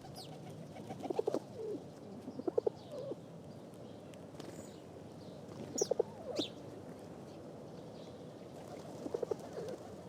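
Pigeons cooing in several short, throbbing phrases spread through the stretch, with a few faint high chirps from other birds about halfway.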